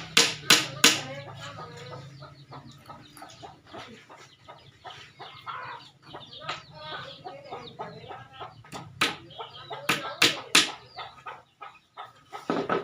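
Hammer blows on wood: three sharp knocks in quick succession at the start, three more from about nine to ten and a half seconds in, and another near the end. Chickens cluck in between.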